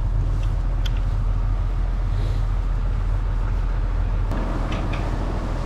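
A steady low machine hum, like an engine or motor running, throughout. A broader noise joins it about four seconds in.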